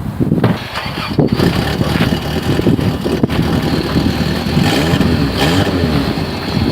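Car engine, presumably the 1992 Toyota Paseo's, coming in suddenly and running, revved up and down a few times.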